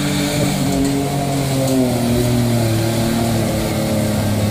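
Jeep Wrangler JK engine revving under load while crawling up a steep dirt climb. The engine note rises and falls with the throttle over the first couple of seconds, then settles to a steadier, lower note.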